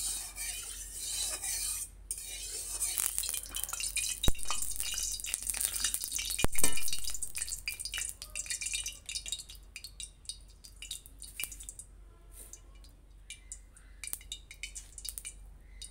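A metal spatula stirring and scraping in an aluminium kadai of heating cooking oil, with the oil crackling and sizzling, and two louder clanks of metal on metal about four and six and a half seconds in. After about eight seconds it thins to scattered crackles and taps.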